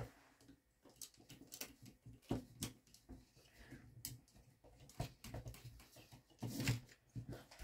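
Plastic Lego bricks clicking and knocking as hands handle and reposition a built figure's parts: faint, irregular clicks, with a longer, louder handling noise about six and a half seconds in.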